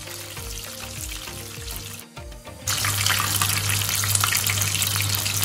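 Batter-coated prawns deep-frying in hot oil: steady sizzling and bubbling with scattered crackles. The sizzle drops out briefly about two seconds in, then comes back louder.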